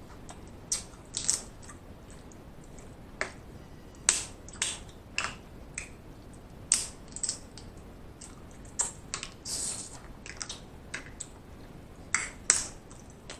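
Snow crab leg shells being cracked and picked apart by hand: over a dozen sharp, irregularly spaced snaps and clicks of breaking shell.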